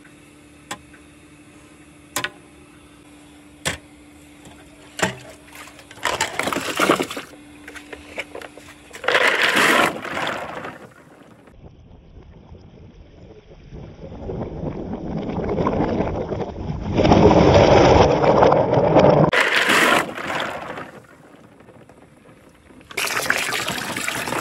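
Water pouring and splashing into a plastic tub in several surges, the longest swelling up over about five seconds in the middle. In the first few seconds there are sharp clicks, wooden balls knocking along the course, over a steady low hum.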